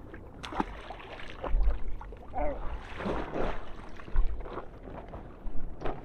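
Wind buffeting the microphone and water lapping against a small inflatable boat, with scattered knocks from handling gear on board.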